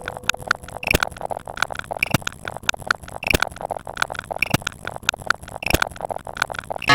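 A rapid, uneven run of short edited sound-effect clicks and pops, with a stronger hit about every second.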